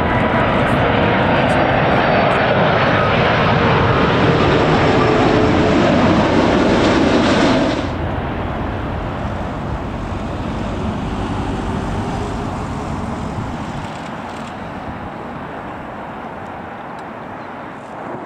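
Airbus A330 jet engines on final approach: a loud jet roar with a slowly falling tone as the airliner passes close overhead. About eight seconds in the sound drops suddenly to a quieter, more distant jet noise as the plane comes in over the runway, fading further near the end.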